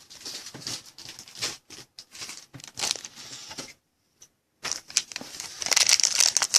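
Crinkling and rustling of a trading-card pack wrapper and cards being handled, a string of small crackles that stops briefly about four seconds in and comes back denser near the end.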